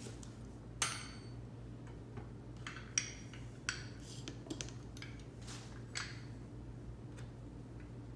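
Kitchen knife cutting through a lemon and striking a plastic cutting board with a sharp knock about a second in, followed by a few scattered clicks and knocks of the knife being set down and a plastic lemon squeezer being handled. A steady low hum runs underneath.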